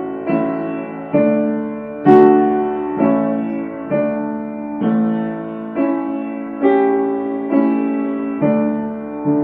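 Background music: gentle piano chords struck about once a second, each one fading away before the next.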